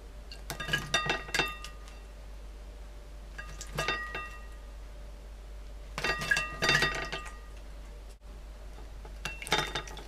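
Masked lovebird bathing in a shallow ceramic dish of water, in four bouts of splashing and wing-flapping; with each bout the dish clinks and rings.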